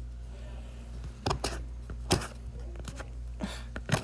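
A scraping tool working stuck transfer-tape adhesive off a plastic Cricut StrongGrip cutting mat: about five short scrapes and clicks, starting a little over a second in, over a low steady hum.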